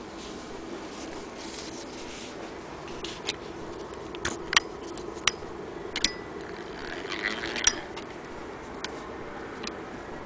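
Irregular sharp metal clicks and knocks, with a brief scrape, from an antique hand-crank Singer Model 12K sewing machine being handled at its crank and handwheel. A steady background hum runs underneath.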